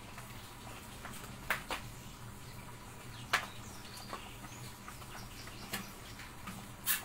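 Pot of syrup simmering on a gas stove: a low steady hum with a few scattered sharp pops and clicks, the loudest near the middle and near the end.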